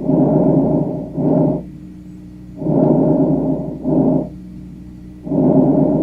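Normal vesicular breath sounds heard through a stethoscope over the lung: a soft blowing noise through each whole inspiration, then a shorter stretch of sound early in expiration. About two breaths and the start of a third, one every two and a half to three seconds, with a faint steady hum between them.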